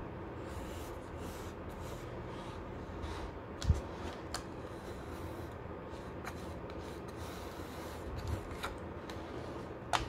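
Quiet rubbing and rustling of hands and a tool working along plastic tape around a box's edge, pressing it tight, with a thump about four seconds in.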